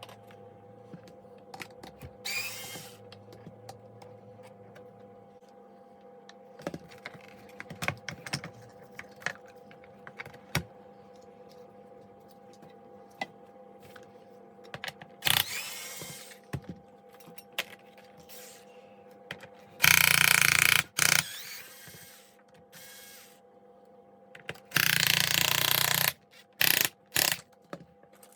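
Four short bursts of a power screwdriver or drill as the plastic casing of an Electrolux canister vacuum cleaner is taken apart, the loudest about two-thirds of the way through. Between the bursts come scattered clicks and knocks of screws and plastic parts being handled.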